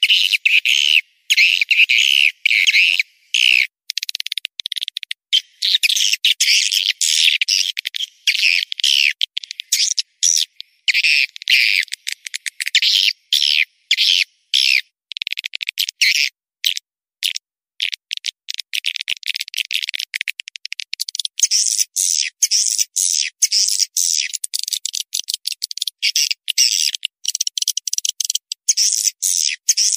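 Swiftlet call track (suara panggil walet), a lure sound played to draw swiftlets into a swiftlet house: dense, high-pitched twittering chirps with no low end, in quick runs broken by short silent gaps. In the last third the twittering turns higher and thinner over a faint hiss.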